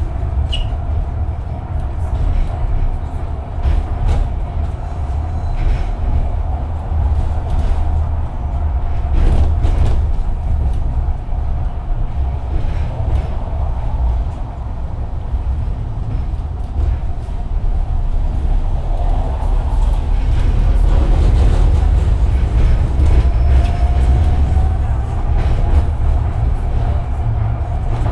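Tram running on its rails: a heavy low rumble with a steady whine over it and scattered clicks from the wheels. Past the middle the whine rises in pitch.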